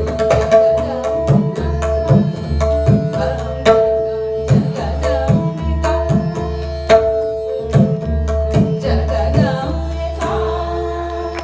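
Live Hindustani classical vocal music: a woman's sung line over a steady tanpura drone and harmonium, with tabla keeping time, its bass drum strokes bending in pitch about once a second.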